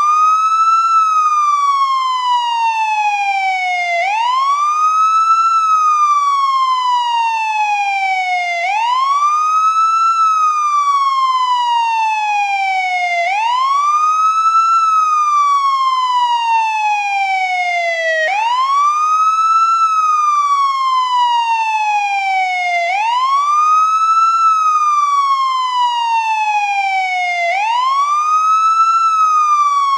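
American police siren on its wail setting: a pitched tone that sweeps quickly up, then glides slowly back down, repeating about every four and a half seconds.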